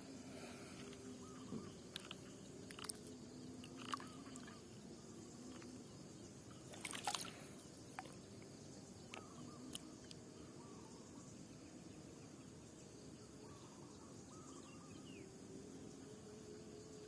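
Faint wet outdoor ambience: water dripping and trickling, with scattered small clicks and taps, the loudest a short cluster about seven seconds in.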